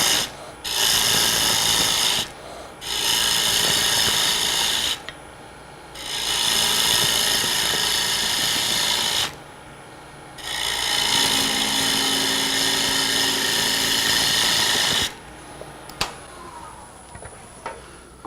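Turning gouge cutting a spinning hard maple lid on a wood lathe, in five cuts of a few seconds each with short breaks between. The cutting stops about 15 seconds in, leaving a quieter stretch with a single click.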